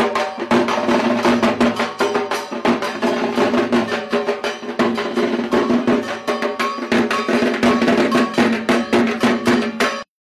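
Music driven by fast, dense drumming over a sustained melody line; it cuts off abruptly near the end.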